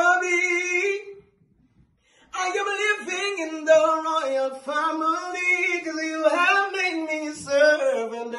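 A man singing a gospel song unaccompanied into a microphone: a short phrase, a pause of about a second, then a long sung passage with the pitch sliding up and down.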